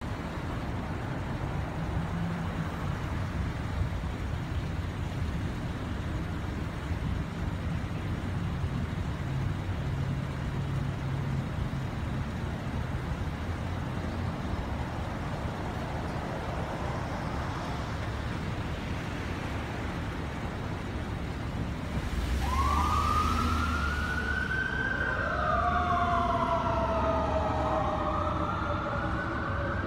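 Low rumble of street traffic, with car engines idling and passing. About 22 seconds in, an emergency vehicle siren starts wailing, rising and falling, and a second siren wail overlaps it a few seconds later.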